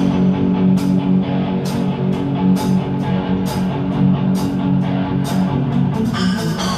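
Live band playing an instrumental passage during a sound check: guitar over a sustained low note, with short high cymbal-like hits on a steady beat a little more than once a second.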